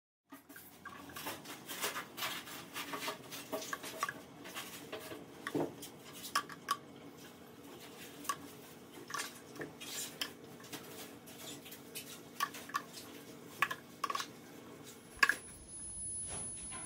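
A metal spoon clinking and tapping irregularly against small ceramic bowls while ground pistachio is sprinkled over bowls of firni.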